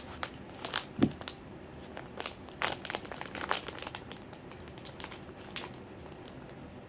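Plastic toy packaging being crinkled and torn open by hand, with irregular crackles that are busiest in the first few seconds and then thin out. There is a soft thud about a second in.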